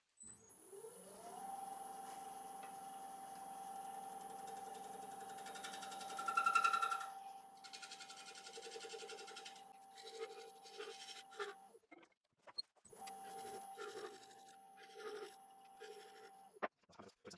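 Wood lathe motor spinning up with a rising whine, then running steadily at speed with a thin high whine above it. There is a short louder sound about six and a half seconds in. The motor sound cuts off about twelve seconds in, comes back a second later at the same pitch, and stops again near the end.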